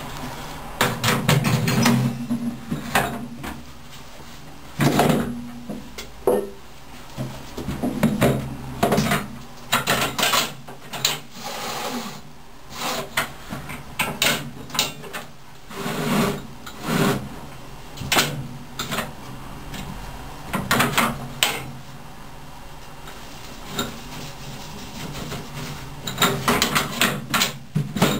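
Cabinet roller towel machine being opened and loaded with a cotton towel roll: irregular clicks, knocks and clunks from the cabinet and roller mechanism as it is handled, over a steady low hum.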